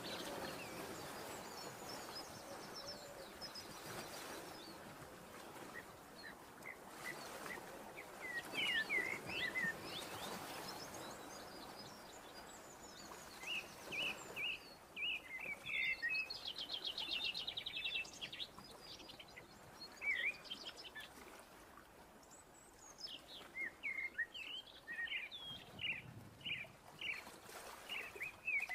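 Small songbirds chirping and twittering over a soft steady hiss, with a fast buzzy trill about halfway through.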